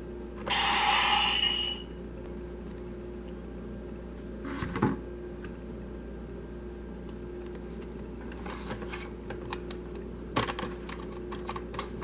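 Steady low hum with a short burst of hissing noise about half a second in, then a single knock and a cluster of sharp clicks and taps in the second half.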